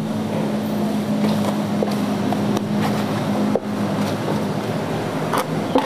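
A steady motor drone with an even hum, running without change, with a few faint clicks over it.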